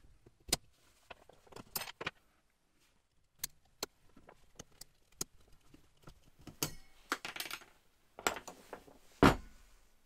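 Light metallic clicks and clinks as circlip pliers and a pick work the spring ring out of a motorcycle starter freewheel gear, steel parts tapping together and on the wooden bench. The spring is worn out.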